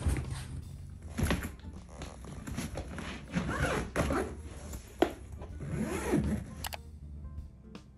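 Zipper of a hard-shell suitcase being pulled around its edge in a series of rasping strokes, with a few sharp clicks and knocks as the case is handled.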